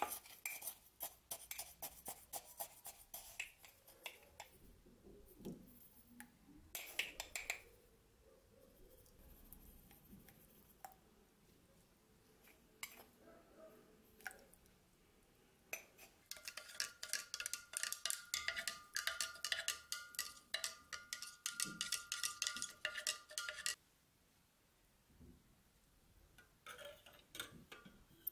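A metal spoon scooping salt and clinking against glass jars. About halfway through, a spoon stirs quickly in a glass jar of water for about seven seconds, dissolving the salt, and gives a fast run of clinks with a ringing glass tone.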